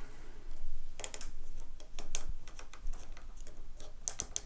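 Scattered sharp plastic clicks and light rattling from handling: zip ties being fastened around a microphone cable on a mic arm, with a quick run of clicks near the end.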